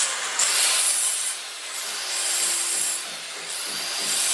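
Handheld electric marble cutter with a diamond blade cutting a granite threshold strip: a loud, harsh grinding hiss that starts suddenly and swells and dips as the blade bites into the stone.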